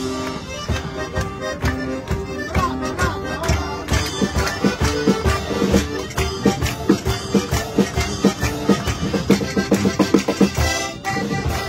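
Live folk music from a small strolling band: an accordion playing chords while a percussionist beats a steady rhythm on a small drum and cymbal, with people clapping along.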